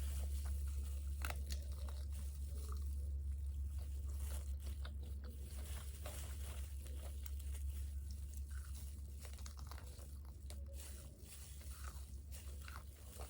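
Close-miked chewing and biting of crispy fried food, a run of irregular crisp crunches, over a steady low hum.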